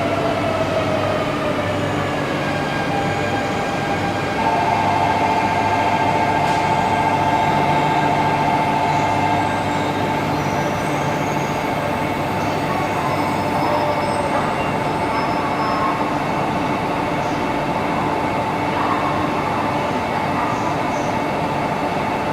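E1 series Shinkansen pulling out of the station, its electric traction motors and inverters whining in several tones over the running noise of the train. A strong steady tone joins about four seconds in and fades after about ten seconds.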